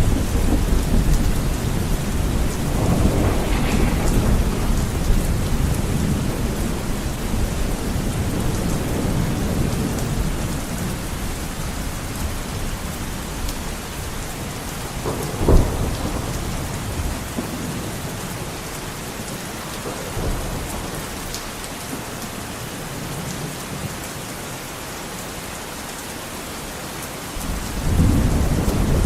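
Heavy rain beating steadily on a window, with rolls of thunder: one sharp clap about halfway through and a loud rumble setting in near the end.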